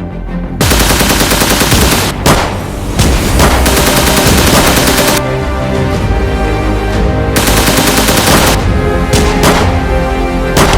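Several long bursts of rapid gunfire, the first starting about half a second in, over background music.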